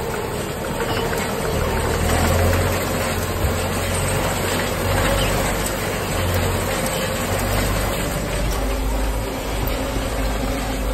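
John Deere 6330 Premium tractor's diesel engine running steadily under load, heard from inside the cab, as it pulls a Deutz-Fahr SwatMaster rotary rake through cut grass.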